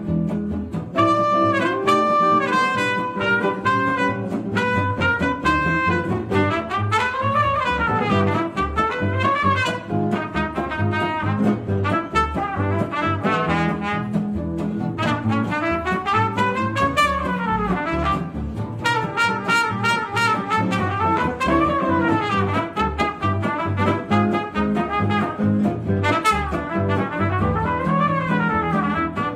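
Gypsy jazz trumpet solo: fast runs of notes that repeatedly climb and fall, over strummed acoustic guitars keeping a steady beat and a double bass.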